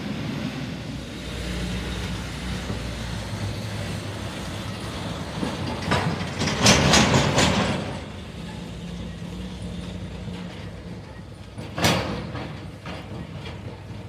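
Diesel garbage trucks driving past: a steady engine hum, then loud clattering from about six to eight seconds in and a single sharp bang near twelve seconds as a roll-off truck hauling an empty steel container goes by.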